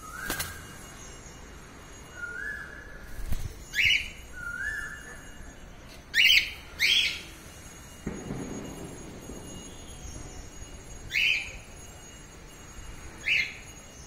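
Cockatiel singing: three short, nearly level whistles, then five sharp upward-swooping whistled notes with pauses between them.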